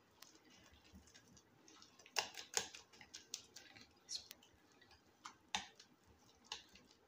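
Metal spoon clinking and scraping against a glass bowl while stirring a thick batter of grated potato, flour and egg: faint, irregular clicks, the loudest a little over two seconds in.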